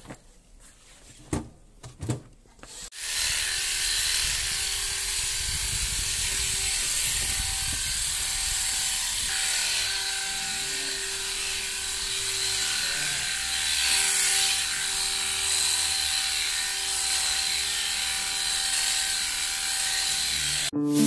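A few handling clicks, then electric sheep-shearing clippers start about three seconds in and run steadily as they cut through a sheep's fleece. They stop abruptly near the end.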